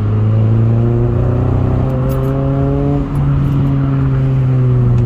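Honda Prelude's H22A 2.2-litre VTEC four-cylinder engine running, its note climbing gradually and then easing back down. The engine is misfiring, which the owner puts down to the ignition not sparking properly.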